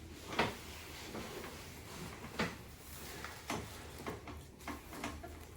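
Someone turning over on a padded chiropractic treatment table: a handful of soft knocks, creaks and rustles spread across a few seconds.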